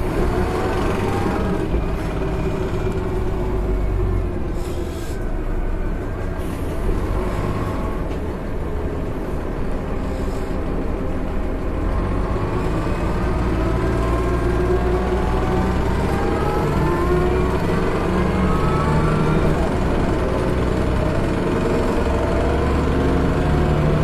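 Inside a city bus on the move: the drivetrain's whine falls as the bus slows, with short hisses of air about 5 and 10 seconds in. The whine then climbs steadily as the bus pulls away and accelerates.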